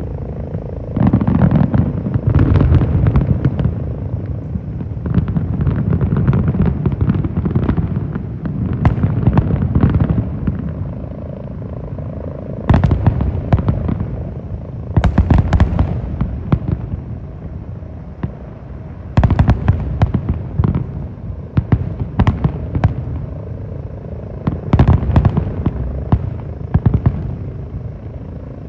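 Aerial fireworks display: shells bursting in rapid volleys of sharp bangs, coming in waves of a few seconds each with a low rumble between them.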